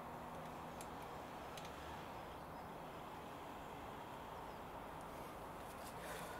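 Quiet, steady workshop room tone: an even hiss with a faint low hum and a few soft ticks, then a brief rustle about six seconds in.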